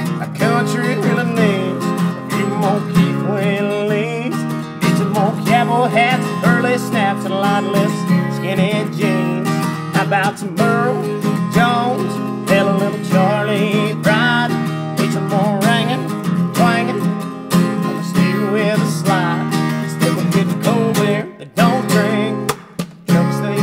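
Live country song: a man singing to his own strummed acoustic guitar, with a couple of brief breaks in the playing near the end.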